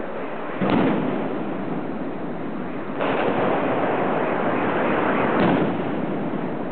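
Chinese New Year fireworks going off: a sudden loud burst about half a second in, another about three seconds in, and a third near the end, over a continuous din of more firework explosions.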